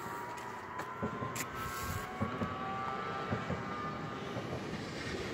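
Electric multiple unit pulling out, its traction motors giving a whine of several tones that climbs slowly in pitch as the train gathers speed, with scattered low knocks from the running gear.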